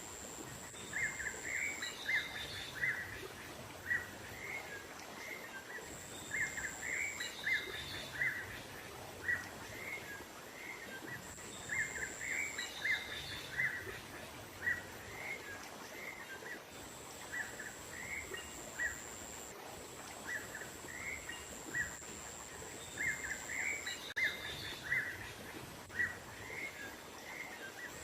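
Small songbirds chirping in quick clusters of short, sharp notes, repeated throughout: a bird-lure call recording (suara pikat) for drawing small wild birds in. A thin, high, steady tone comes and goes behind the chirps.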